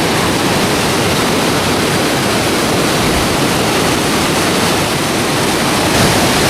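Waterfall rushing close by: a loud, steady wash of falling water.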